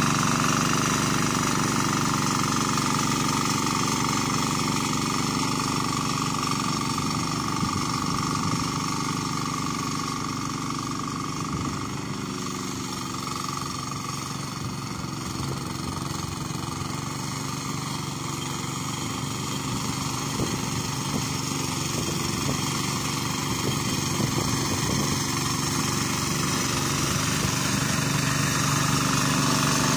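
Yanmar 12 hp single-cylinder diesel engine of a turtle-type hand tractor running steadily under load as it pushes through deep rice-paddy mud. It grows fainter in the middle as the machine moves off, and louder again near the end as it comes back.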